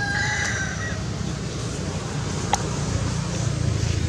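The end of a rooster's crow, a held call that fades out within the first second, over a steady low rumble, with one sharp click about two and a half seconds in.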